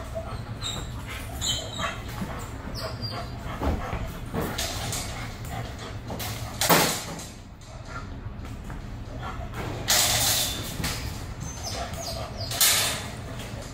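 Dogs making noise in wire kennel runs, with three loud short bursts about 7, 10 and 13 seconds in, over a steady low hum.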